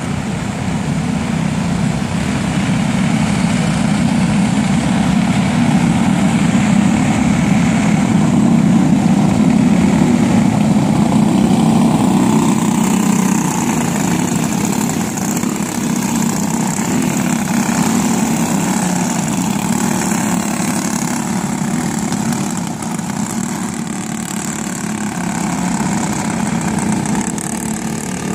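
Engines of a field of racing karts, Briggs & Stratton Animal single-cylinder four-strokes, running together as the karts circle the track, growing louder to a peak about ten seconds in and then easing off.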